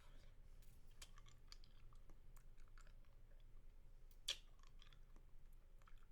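Faint, close-miked mouth sounds of eating a lollipop: scattered small wet clicks and smacks, with one louder sharp click about four seconds in.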